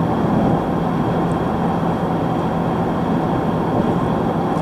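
Steady road and wind noise of a car driving at speed, heard from inside, with a low steady drone underneath.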